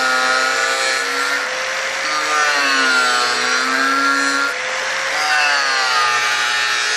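Angle grinder cutting grooves along the fold lines of an aluminium composite cladding panel. Its motor whine sags in pitch a couple of times as the disc bites into the panel.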